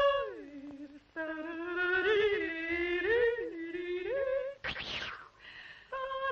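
Film soundtrack of long wordless melodic tones that slide and waver up and down in pitch, with short breaks between phrases. A brief rising noise burst comes about three quarters of the way through.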